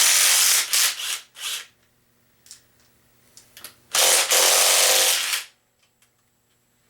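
Handheld power tool run in two bursts, the first about a second and a half with a short break and the second about a second and a half starting around four seconds in, as the number-two connecting rod is unbolted so its piston can be pushed out.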